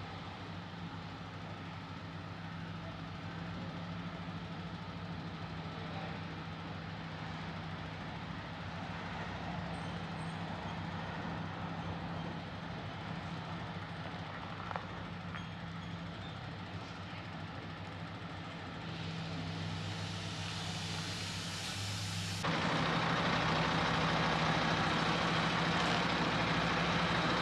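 Diesel engine of a semi-truck tractor unit hitched to a fairground ride trailer, running with a steady low drone. About 22 seconds in it becomes suddenly louder and closer.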